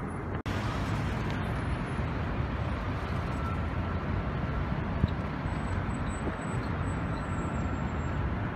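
Steady road traffic noise from a busy city street, with car engines and tyres blending into a continuous rumble. It drops out for an instant about half a second in.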